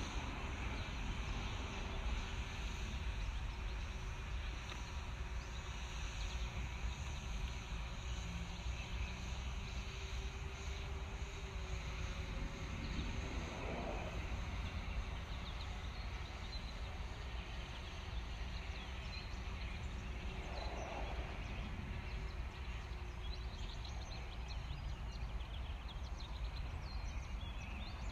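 Steady outdoor background noise with a low rumble, and two brief faint sounds about 13 and 21 seconds in.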